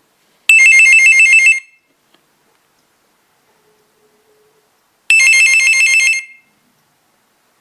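Corded landline desk telephone's electronic ringer ringing: two rings about a second long with a pause of about three and a half seconds between, each a rapid high-pitched warble between two tones.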